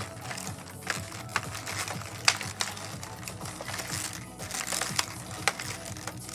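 Irregular sharp clicks and taps of small hard pieces being handled, with faint music underneath.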